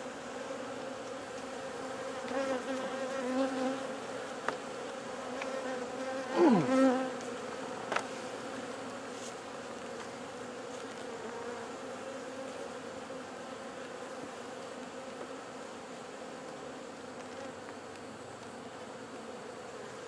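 Honey bees buzzing steadily around an open top bar hive, a colony's hum. About six seconds in one bee passes close, louder, its buzz dropping in pitch, and a couple of light knocks come around four and eight seconds in.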